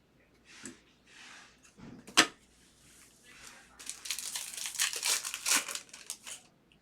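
A foil trading-card pack wrapper being torn open and crinkled: a few short rustles, one sharp click a little after two seconds, then a longer stretch of dense crinkling.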